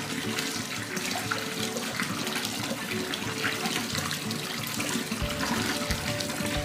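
Tap water pouring steadily into a plastic basin and splashing as a kitten is held and washed in it.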